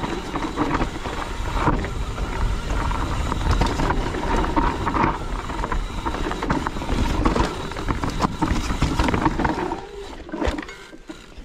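Mountain bike going down a rocky trail: tyres, chain and frame clattering over the rocks in rapid knocks, over a low rumble of wind on the microphone. It eases off about ten seconds in as the bike slows.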